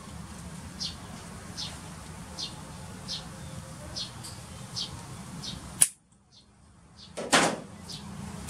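A short high chirp repeating about every three-quarters of a second over a steady low hum. Just before six seconds in there is a sharp click and about a second of near quiet, then a loud, brief rushing sound, the loudest thing here.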